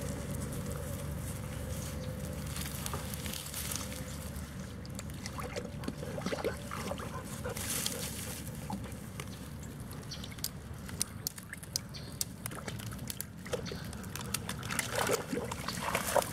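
Labrador puppies moving through tall grass and reeds at the water's edge: rustling stems, scattered small clicks and crackles, and light sloshing of water.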